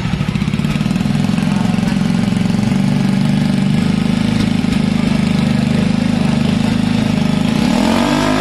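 Jawa motorcycle's single-cylinder engine idling with a steady, pulsing exhaust note from the peashooter silencer. Near the end the revs begin to rise.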